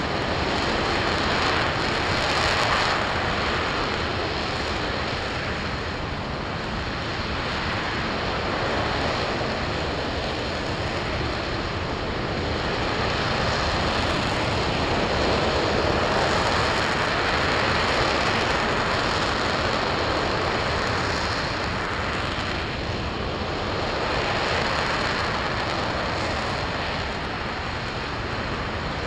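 RS-25 liquid-hydrogen/liquid-oxygen rocket engine firing on a test stand, heard from a distance as a steady rushing noise that swells and eases slowly.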